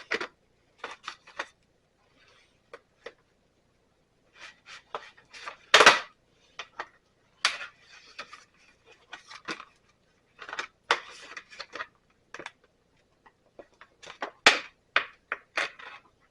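Steel bandsaw blade and its packaging being handled: scattered metallic clinks and rattles with short stretches of rustling, the loudest clink about six seconds in.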